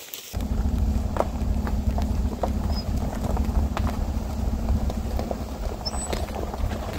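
A vehicle engine idling: a steady low rumble that starts suddenly just after the start, with a few faint ticks over it.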